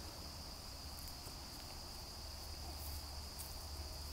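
Steady high-pitched insect chorus, a continuous trill that does not change, over a low rumble.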